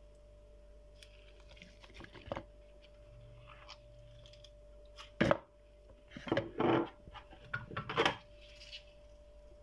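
Chopped leek and celery being tipped and scraped into a plastic food-processor bowl: a few scattered knocks and rustles, the sharpest about five seconds in, with a cluster near the end, over a faint steady hum.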